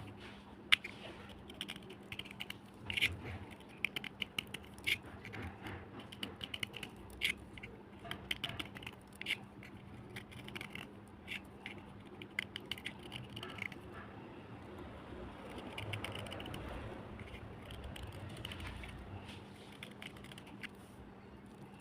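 Black slate cubes, soaked overnight, crunched and chewed close to the microphone: a long run of sharp, irregular crackling crunches, easing about two-thirds through into softer grinding chewing. A steady low hum sits underneath.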